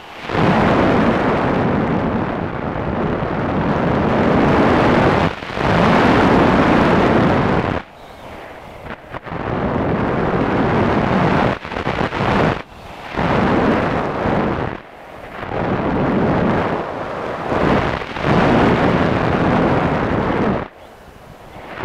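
Wind rushing over the microphone of a camera mounted on an RC plane in flight. The loud, noisy rush surges and falls away several times, with a few brief sudden drops.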